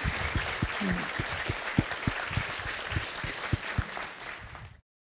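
Audience applauding, a dense patter of claps that thins out and then cuts off abruptly near the end.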